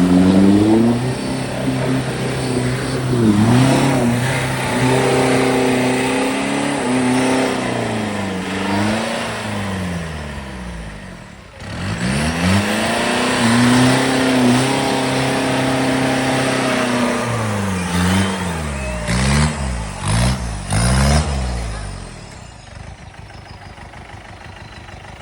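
Offroad 4x4's engine revving, its pitch rising and falling repeatedly in two long runs with a short break about halfway. It ends in a few quick throttle blips, then drops to a much quieter level near the end.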